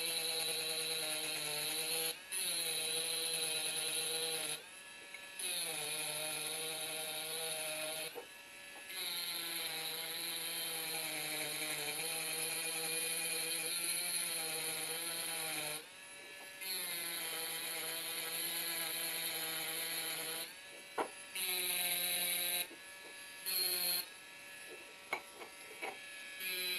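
Small electric rotary tool with a diamond tip grinding into glass while engraving: a steady high motor whine with a gritty hiss. It is broken by several short pauses.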